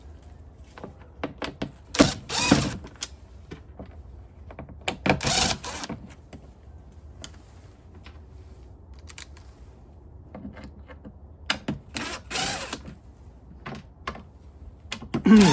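Plastic clicks and knocks from the O-Cedar EasyWring spin mop bucket's mechanism being worked by hand, with three longer scraping sounds of under a second each. This is a test of whether the spin drive will grip a shaft that the repairer suspects has been thinned by wear.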